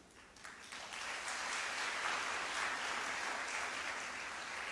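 Audience applauding: the clapping builds up over the first second, holds, and slowly fades toward the end.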